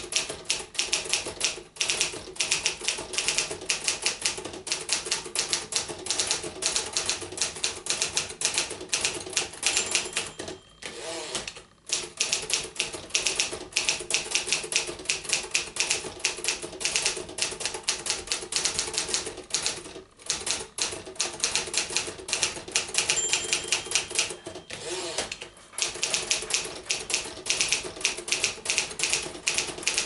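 A 1956 Remington Quiet-Riter manual portable typewriter being typed on at a fast, steady pace: a dense run of sharp key and typebar clacks, broken by a few short pauses. A brief ringing tone sounds twice, about ten seconds in and again around twenty-three seconds.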